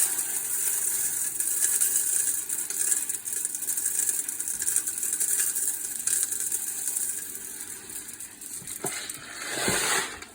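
Coarse dishwasher salt pouring through the salt dispenser funnel into a countertop dishwasher's salt reservoir: a steady granular hiss that thins out near the end, with a short swell just before the end.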